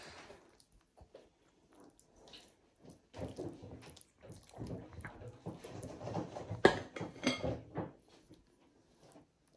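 Kitchen handling noises from filling a yeast-dough pastry with soft sweet cheese filling: irregular soft scrapes and squelches, with one sharp clink of a utensil against a dish about two-thirds of the way through.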